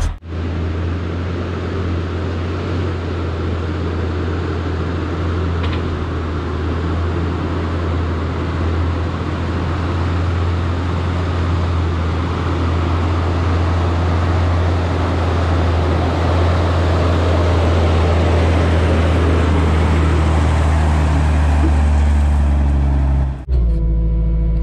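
Diesel dump truck running as it drives over a gravel driveway, its engine and the crunch of stone slowly growing louder as it approaches. Near the end the sound cuts to a steadier engine hum with a few even tones.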